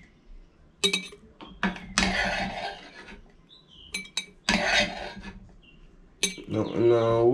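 Chopped nopal and okra being scraped and dropped into a glass jar: several separate sharp clinks against the glass, with short scraping sounds in between.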